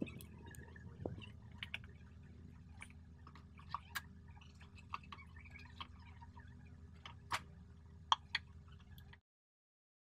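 Faint steady low hum with scattered light clicks and taps, the loudest a few sharp ticks near four, seven and eight seconds in; the sound cuts off to silence about nine seconds in.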